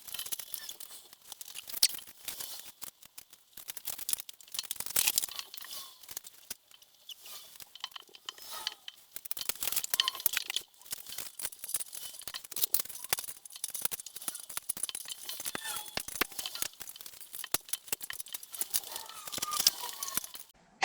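Brittle old plastic and metal parts of a surgical table being handled and worked on: irregular crackling, tearing and small clinks. The plastic is cracked all over and the screws are rusted fast.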